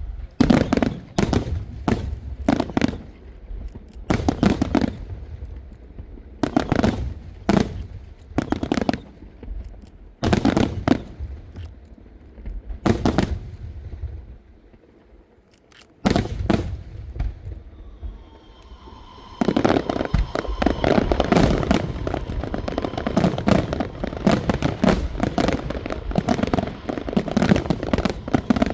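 Aerial fireworks shells bursting: separate loud bangs, each trailed by crackling, at irregular intervals. About two-thirds of the way in, after a brief lull, they build into a dense continuous barrage of bursts with a steady whistle running over it.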